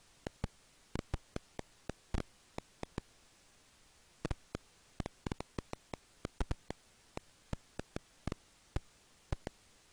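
Irregular sharp clicks, a few a second, some in quick pairs and clusters, from serotine bats at their roost, over a faint steady hiss.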